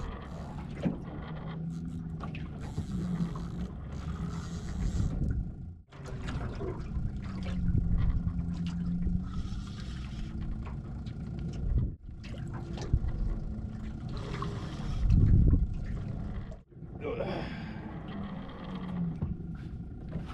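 Wind and water noise around a small open boat at sea, with scattered knocks and handling sounds.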